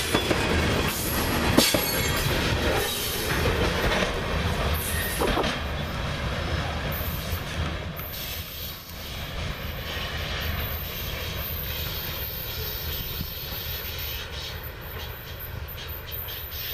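Freight cars (covered hoppers and tank cars) rolling past close by, the wheels clacking sharply over the rail. About halfway through the sound drops to a quieter steady rumble as the rear of the train moves away around a curve.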